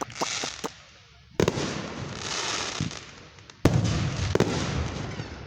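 Aerial fireworks bursting: a few small pops, then two loud bangs about a second and a half in and near the four-second mark, each followed by a couple of seconds of crackle.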